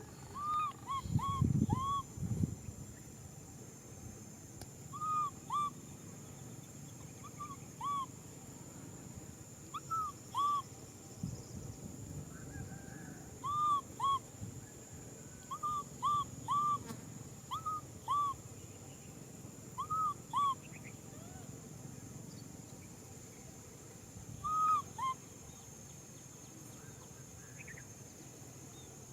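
Baby macaque's repeated short cooing cries, each rising and then falling in pitch, mostly in twos and threes every second or two: distress calls of an infant wanting to be held.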